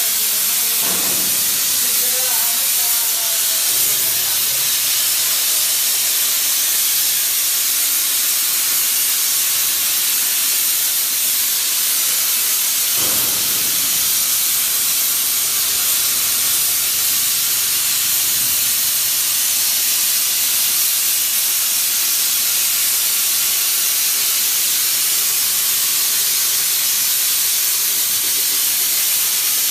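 A 200 A CNC plasma cutter cutting: a loud, steady hiss from the torch's plasma arc and air jet.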